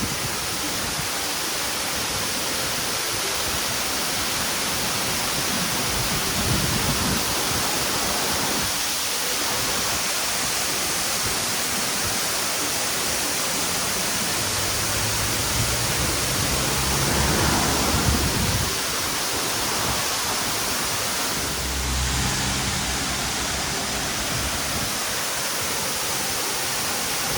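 Steady rush of a waterfall's falling water, with a few low rumbles coming and going, around six seconds in, between about fifteen and eighteen seconds, and again near twenty-two seconds.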